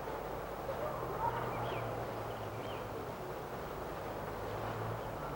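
Outdoor street ambience: a steady low hum and background noise, with a couple of faint high chirps about one and a half and two and a half seconds in.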